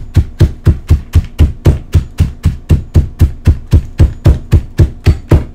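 Hammer pounding Hot Cheetos in a bag on a tabletop, crushing them to crumbs: rapid, even, loud thuds about four a second.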